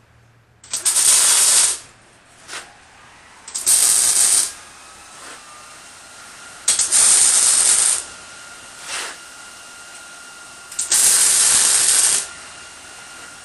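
Wire-feed welder's arc crackling and hissing in four short tack welds of about a second each, fixing steel legs onto a steel base plate.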